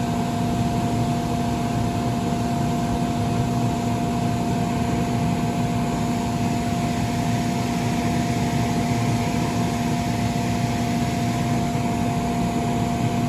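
Electric inflation blower of a bounce house running steadily, a constant hum over a rush of air.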